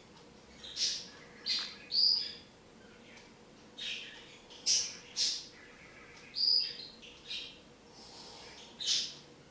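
Budgerigar giving about nine short, high chirps at irregular intervals, each a brief separate call.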